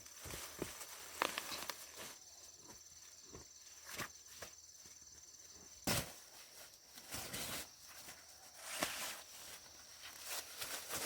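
Irregular snapping and rustling of dry corn plants being handled during a hand corn harvest, with a sharp snap about six seconds in, over a steady faint high-pitched tone.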